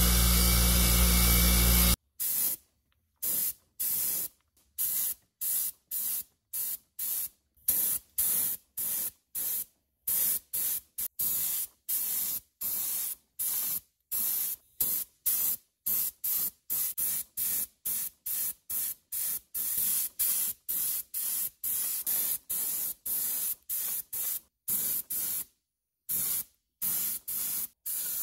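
Compressed-air paint spray gun spraying enamel primer in short hissing bursts, roughly two a second, with brief silent gaps between trigger pulls. For the first two seconds, a bench grinder's wire wheel runs with a steady hum, brushing the threads of a clamp handle.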